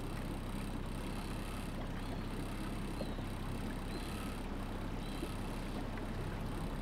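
A boat's motor running steadily at low speed, a constant low hum with water noise.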